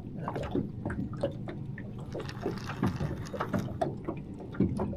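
Small waves lapping against the side of a small boat: irregular little splashes and knocks over a low steady rumble.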